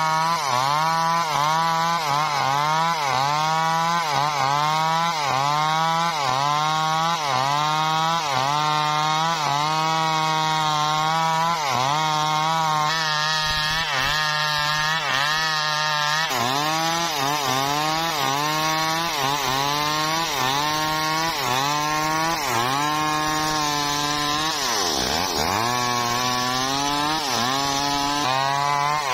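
Two-stroke Stihl chainsaw ripping lengthwise through a log under load. The engine pitch dips and recovers in a steady rhythm, a little more than once a second, as the bar is worked through the cut. Near the end the engine slows deeply once and then picks back up.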